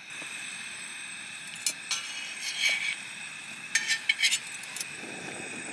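A flat metal spatula scrapes and taps on an iron tawa while a roti is turned and pressed. This comes in short clusters about two and four seconds in, over the steady hiss of a portable gas stove burner.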